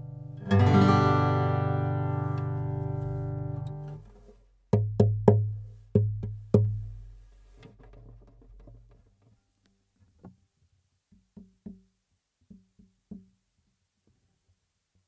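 Brook Tamar acoustic guitar: a strummed chord rings out for about three seconds, then the player hits the guitar body five times, making sharp, boomy knocks, followed by a run of much fainter taps. The body noise is heard as the mix moves from condenser mics to the Fishman Rare Earth Blend pickup.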